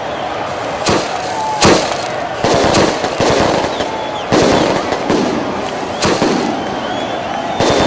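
Fireworks going off: a string of about ten sharp bangs at irregular gaps of roughly a second, over crowd voices.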